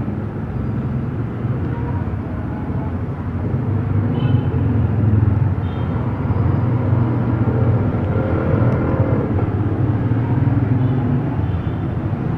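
Street traffic: motor vehicles running and passing, a steady low rumble.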